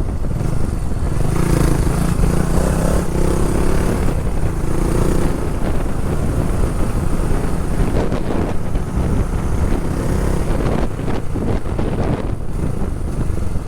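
Motorcycle running at road speed, with heavy wind buffeting the microphone and a steady engine drone throughout.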